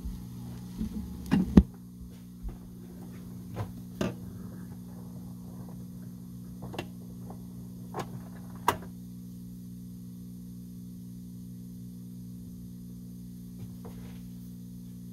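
Turntable between sides of a 45 rpm single: a steady low electrical hum, with scattered sharp clicks and knocks over the first nine seconds as the tonearm is lifted and the record is handled and turned over. The loudest knock comes about a second and a half in; after about nine seconds only the hum is left.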